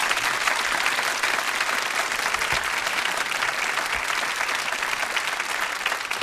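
Concert audience applauding steadily, heard on a cassette recording of an FM radio broadcast.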